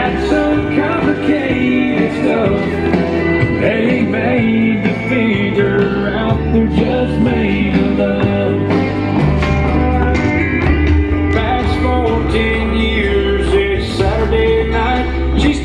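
Country song with singing over a steady band backing, its bass line stepping from note to note.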